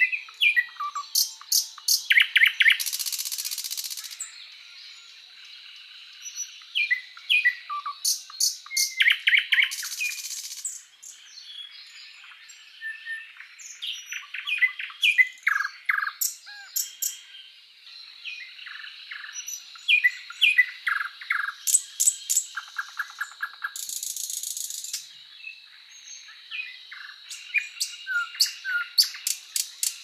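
Small songbirds chirping and singing: runs of quick high chirps, short trills and falling notes, with a few brief harsh hissing buzzes among them.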